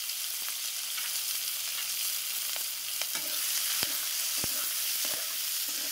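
Onions frying in hot mustard oil in a kadhai as they are stirred: a steady sizzling hiss, with several sharp clicks of the stirring spoon against the pan.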